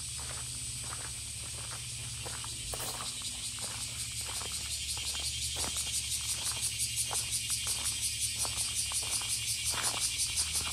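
Cicadas buzzing in a steady high drone that turns into a pulsing rattle, about three pulses a second, growing louder from about four seconds in. Footsteps tap along beneath it over a low steady hum.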